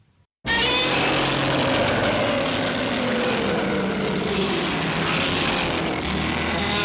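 Homemade kaiju roar sound effect for a mutated Spinosaurus (Godzilla): a long, loud, rough roar that starts abruptly about half a second in and holds for about six seconds, its pitch slowly sinking.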